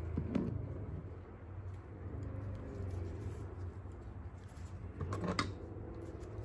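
Small clicks and rustling from tweezers and nitrile-gloved hands being handled, in two short bursts, one just after the start and one about five seconds in, over a steady low hum.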